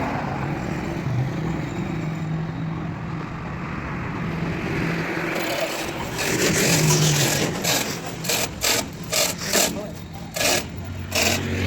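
Steady background hum with a low drone, then from about halfway a series of short rasping strokes, roughly two a second.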